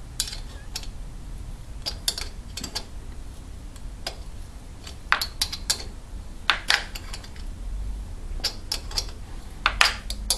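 Hand tap and tap wrench being worked in a rocker stud hole of a Morini 500 cylinder head: irregular sharp metallic clicks and clinks as the tap cuts and is backed off now and then to break the chips. The loudest clicks come about halfway through and near the end.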